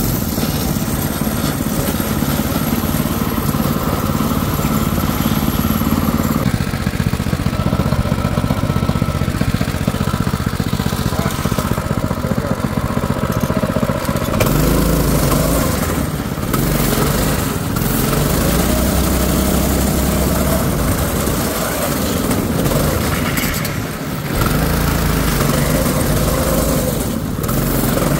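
Predator 6.5 hp single-cylinder engine on a drift trike running under way, its note shifting in pitch several times, about six and fourteen seconds in, with a brief dip in level near the end.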